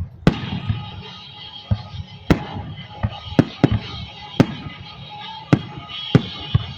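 Fireworks going off: about ten sharp bangs at uneven intervals, some close together, with rumbling and crackle between them.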